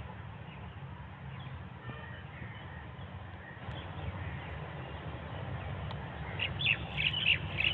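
Small birds chirping and calling, with a run of loud, sharp, rapid calls near the end, over a steady low hum.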